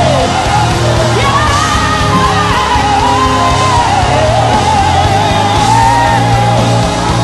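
Loud live worship music from a band: held bass notes underneath a lead line that slides between long, high sustained notes.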